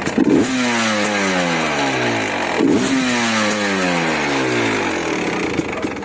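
Enduro motorcycle engine blipped twice, about two and a half seconds apart, the revs falling away slowly after each blip.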